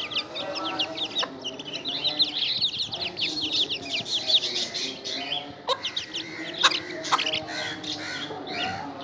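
A flock of Aseel chicks peeping in a rapid, continuous run of high, short chirps while feeding, with lower clucking calls from a hen underneath and a few sharp clicks.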